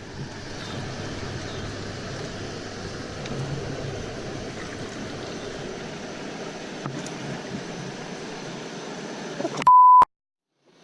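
Steady rush of flowing creek water. Near the end a short, loud, single-pitched electronic beep cuts in, and the sound then drops to dead silence for under a second.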